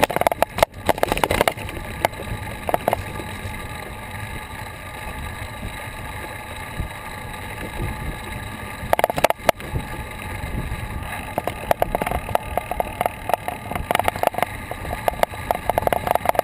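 Riding noise from a moving bicycle: wind rushing over the microphone and tyre noise on the paved path, at about 17 to 19 km/h. Sharp knocks and rattles come through over bumps, louder around 9 s in and near the end.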